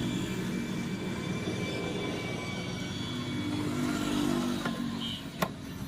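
A motor vehicle engine running steadily, its pitch rising a little and then falling away near the end, with one sharp click about five and a half seconds in.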